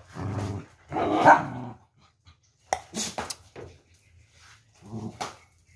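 Dogs barking, the loudest call about a second in, with a few sharp clicks near the middle.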